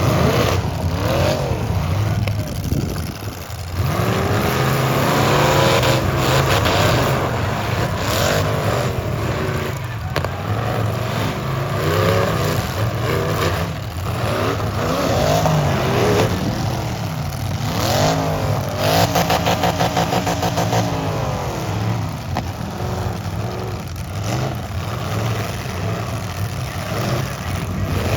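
Engines of full-size demolition derby cars revving up and down over and over, with a few sharp bangs among them.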